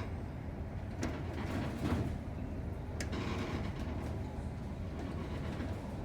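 Steady low hum of a large ferry's engines and machinery while under way, with a few louder whooshing swells and a sharp click about three seconds in.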